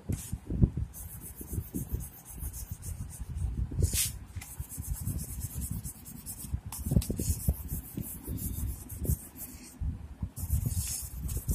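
Oil pastel scraping back and forth across paper in quick, irregular colouring strokes.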